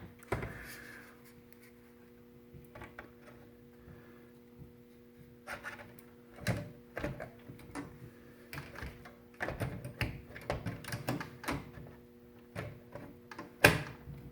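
Scattered clicks and knocks of a graphics card being fitted into a PC case: metal brackets and plastic handled, seated and fastened, with one sharp click near the end. A faint steady hum runs underneath.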